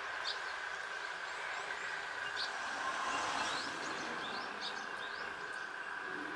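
Small birds chirping in short, scattered calls over a steady outdoor hum.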